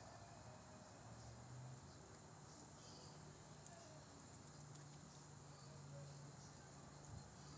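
Crickets trilling steadily at night in a faint, high, unbroken drone, with a low hum coming and going underneath.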